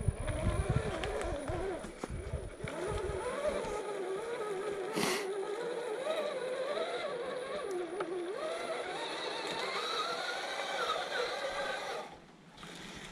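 Electric motor and gearbox of a 1/10-scale RC crawler whining as it is driven slowly over rough ground, the pitch rising and falling with the throttle. There is one short knock about five seconds in, and the whine stops near the end.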